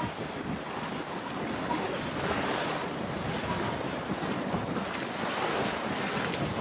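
Steady rushing wind noise buffeting the microphone outdoors.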